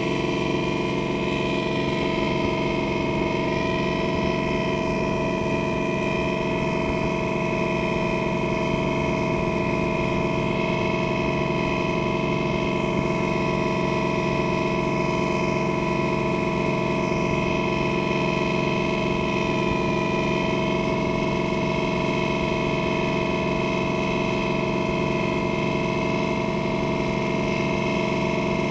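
Boat engine running at a steady speed: an even drone with a high whine over it.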